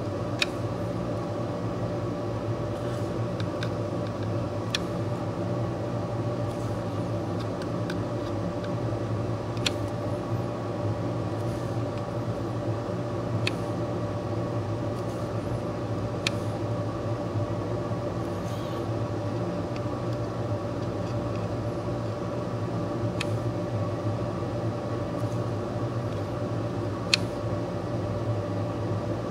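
Steady machine hum with several steady tones, like a fan or air-conditioning unit running in a small room. Faint light ticks come every few seconds as metal tweezers touch the circuit board while placing parts.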